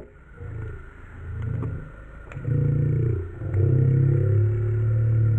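A low droning rumble that rises and falls in four swells, each longer than the last; the last is held to the end.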